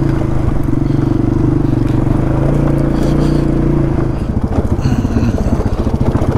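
Polaris Sportsman 570 ATV's single-cylinder engine running steadily under load, then dropping in revs about four seconds in and turning choppy, with clatter from the machine bouncing over rough trail.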